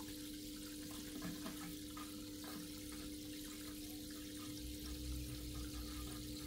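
Steady trickle of aquarium water circulating, over a constant low hum, with a few faint knocks and a brief low rumble past the middle as the probe cable is handled.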